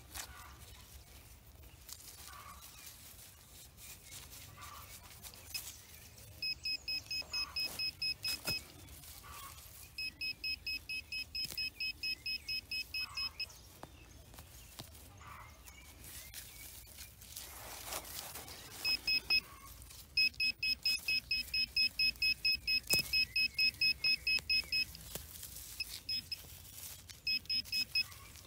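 A handheld pinpointer probe beeping in quick, even runs of about four beeps a second, all at one high pitch, as its tip is worked through the soil of a freshly dug hole. The runs stop and start as the probe comes near the buried piece of metal and moves away from it. The metal is taken for aluminium.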